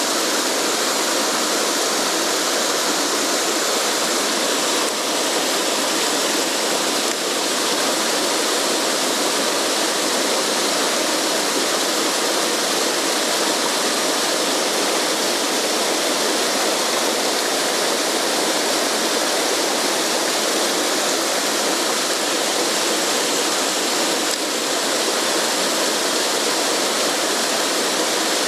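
Mountain stream rushing over rocks: a steady, loud, unbroken roar of moving water.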